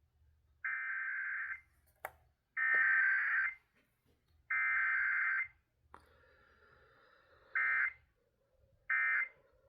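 Emergency Alert System SAME data transmission: three roughly one-second bursts of buzzy, warbling digital tones (the alert header), then two short bursts near the end (the start of the end-of-message code), sent for a Required Weekly Test.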